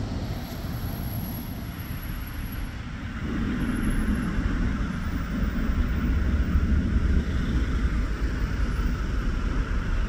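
MGT6D low-floor tram running slowly along the track, a steady rumble that grows louder after about three seconds as it comes nearer.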